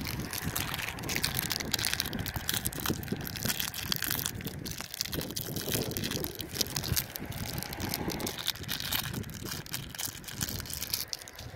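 Plastic snack-bar wrapper crinkling and crackling in a hand as it is peeled open.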